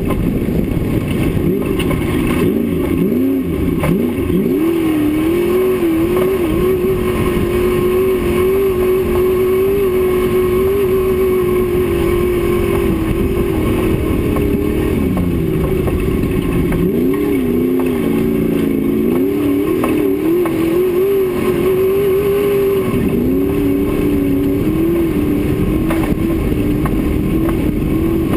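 Off-road race car's engine running hard at speed, its pitch dipping and climbing back up several times, about four seconds in, around the middle, and again near the end, over a steady rush of wind and road noise.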